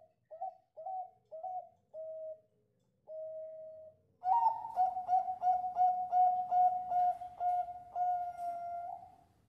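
Zebra dove (a Bangkok-type perkutut) cooing: a few short coos and one longer note, then from about four seconds in a louder, fast run of coos about three a second that ends in a long drawn-out note.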